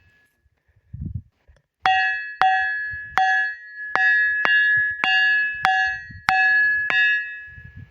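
A ringing rock struck over and over with a hand-held stone: about ten bell-like 'tan tan' clangs, a little over half a second apart, starting about two seconds in. Each strike leaves a clear ringing tone that carries on between strikes.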